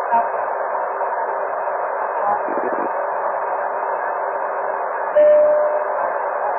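Aircraft VHF radio transmission with no readable voice: an open carrier giving a steady hiss of static. About five seconds in, a steady whistle tone comes in and the level jumps. The pilot's call is getting through as carrier only.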